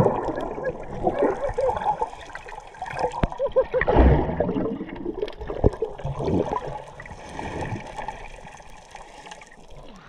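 Water heard through a submerged action camera: bubbles gurgling and water sloshing as swimmers move, with a louder rush of water about four seconds in.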